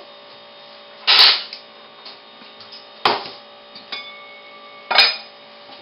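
Metal cookware, a mixing bowl and a saucepan, knocking and clanking as it is handled and set down on a kitchen counter. There are four sharp knocks, the loudest about a second in and others about three, four and five seconds in, over a faint steady hum.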